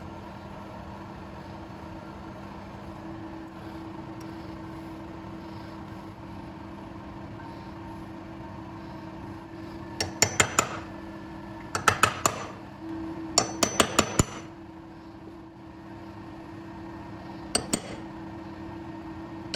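Hammer tapping a centre punch into a scribed aluminium bar to mark hole centres: three clusters of quick, sharp, ringing taps from about ten seconds in, then a pair of taps near the end. A steady low hum sits underneath.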